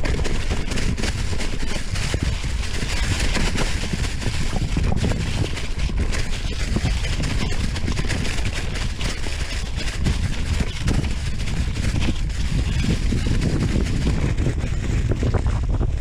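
Mountain bike descending a dirt trail at speed: wind buffeting the microphone in a low rumble, tyres rolling over dirt and dry fallen leaves, and frequent small knocks and rattles as the bike goes over bumps.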